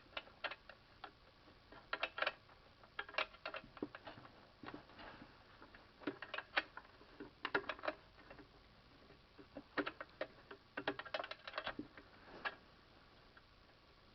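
Light clicks and clinks of hand tools and small metal engine parts being handled during reassembly of a Honda G100 engine. They come in irregular clusters and stop about twelve seconds in.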